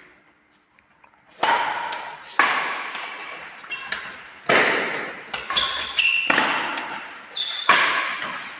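Badminton rally: a racket strikes the shuttlecock about six times, roughly a second apart, each sharp hit echoing in a large hall. A few short high squeaks come between the later hits.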